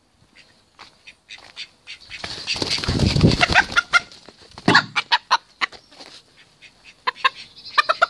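Chickens clucking in short repeated calls, with a loud rustling burst, like flapping or handling, about two to four seconds in.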